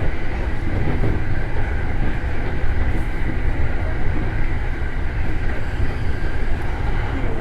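Electric commuter train running at speed, heard from the front of the train: a steady low rumble of wheels on track with a faint steady whine above it.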